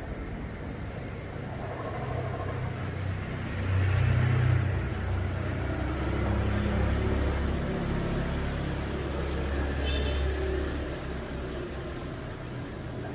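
Home-built CNC router running, its motors making a low rumble with tones that shift in pitch as the axes move, loudest about four seconds in.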